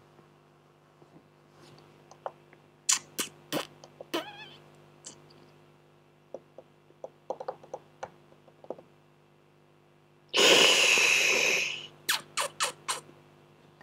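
Scattered sharp clicks from working a computer's mouse and keyboard over a low steady hum. About ten and a half seconds in comes a loud rushing burst of noise lasting about a second and a half, the loudest thing here, followed by a quick run of about six clicks.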